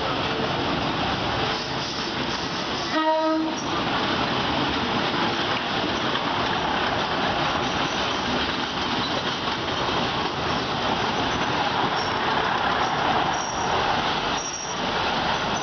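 Train running on the rails, a steady dense rumble of wheels and track, with one short horn blast about three seconds in.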